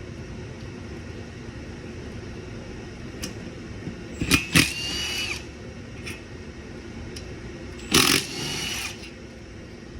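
A power driver runs in two short bursts, about four and eight seconds in. Each burst opens with a sharp click and gives a steady whine for under a second, as bolts are spun off a small engine being torn down. A low steady hum sits underneath.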